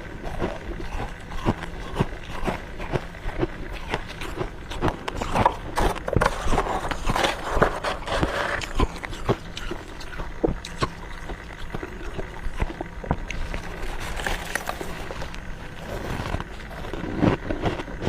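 Close-up crunching and chewing of freezer frost: many sharp, crisp crunches coming quickly and irregularly, thickest in the middle.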